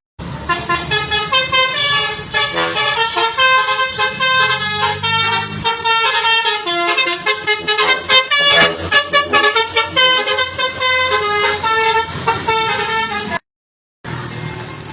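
A bus's multi-tone basuri telolet horn playing a quick melody of changing notes. It breaks off suddenly near the end.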